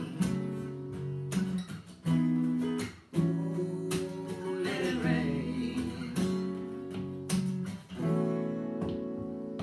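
Acoustic guitar strumming chords in an instrumental break between verses of a folk song, the chords changing about every second.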